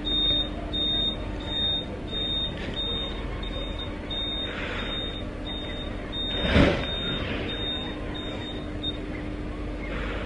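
High-pitched electronic beeping, about two short beeps a second, that stops near the end, over a steady low hum. There is one brief rush of noise about two-thirds of the way through.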